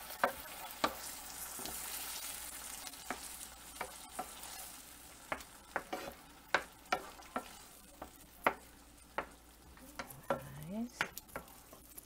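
Wooden spoon stirring ground beef and tomato sauce in a nonstick frying pan, knocking and scraping the pan in quick clicks that come more often in the second half. Underneath is a low sizzle of the sauce cooking, stronger in the first couple of seconds.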